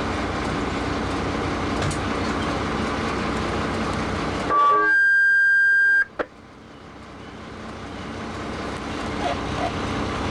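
Steady fireground din of fire apparatus engines running. About four and a half seconds in, a loud, steady, high-pitched beep lasts about a second and a half and shuts out the background. A click follows, then the din fades back in slowly.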